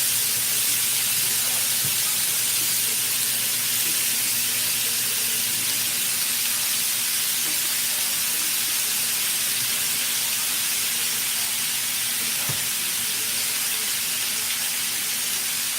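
Shaved steak, peppers and onions sizzling in oil in a frying pan, a dense, steady hiss that eases off slightly over the seconds. A faint steady hum runs underneath.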